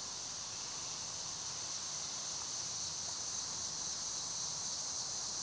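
Steady high-pitched drone of summer woodland insects, with a soft hiss underneath and no other clear event.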